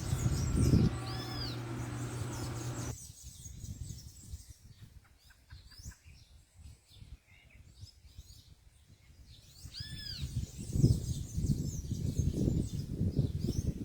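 Wild birds chirping and calling, with short arched high notes about a second in and again about ten seconds in. A low rumbling noise comes in near the end.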